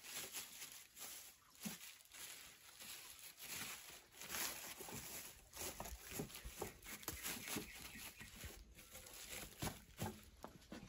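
Woven plastic sack rustling and scrunching in irregular crackles as hands knead and rub the grated cassava inside it, working the starch out of the mass.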